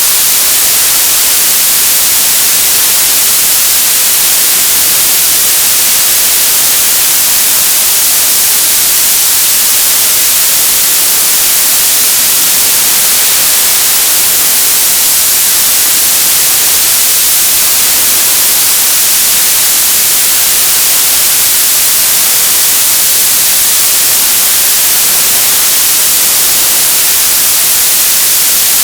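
Television static: a loud, steady hiss of white noise, brightest in the treble, unchanging throughout.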